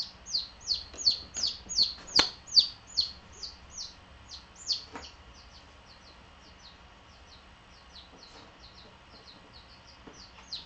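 Baby chicks peeping: a rapid string of short, high, falling peeps at about three a second, loud for the first few seconds and fainter after that.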